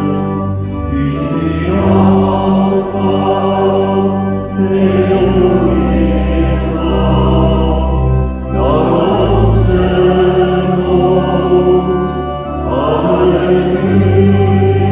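Congregation singing a hymn with organ accompaniment: long held chords over low bass notes that change every couple of seconds.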